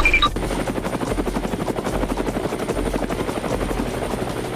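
A machine running with a fast, steady chopping pulse, like a vehicle's motor or a rotor. A couple of short high beeps sound right at the start.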